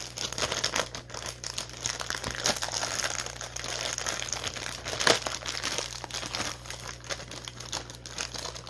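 Clear plastic packaging bag crinkling and rustling in the hands as it is handled and worked open, with one sharper crackle about five seconds in.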